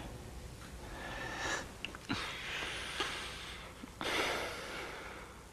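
Two people kissing: breathing through the nose in three soft swells, with small clicks of the lips between.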